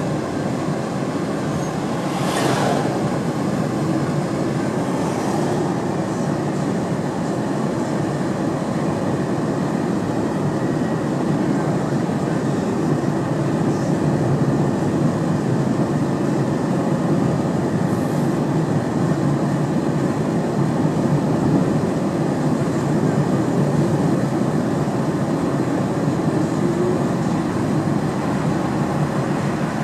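Steady road noise heard inside a moving car: an even, low rumble of tyres and engine, with a brief hiss about two and a half seconds in.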